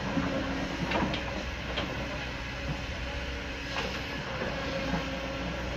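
Heavy diesel construction machinery running steadily, with rocks knocking and clattering now and then: sharp knocks about a second in, again near two seconds and near four seconds.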